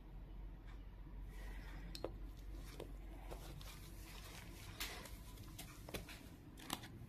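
Faint handling sounds of latex-gloved fingers and small craft items: soft rubbing and rustling, with four or five sharp little clicks as things are touched and moved, over a low steady hum.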